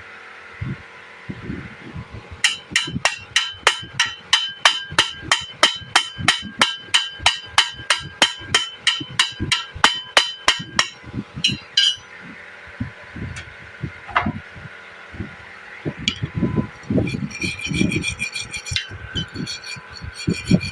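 Hammer striking steel: a rapid, even run of ringing metallic blows, about three to four a second, for roughly eight seconds. Scattered duller knocks come before and after it, and near the end a different, ringing metallic clatter starts.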